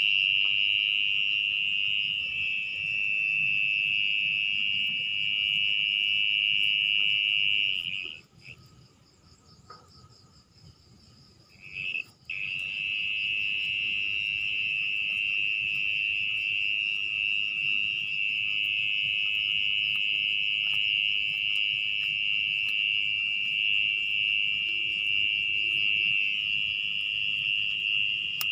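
Mole cricket calling from its burrow: a loud, continuous high trill. It stops abruptly about eight seconds in, gives a short burst about four seconds later, then resumes steadily.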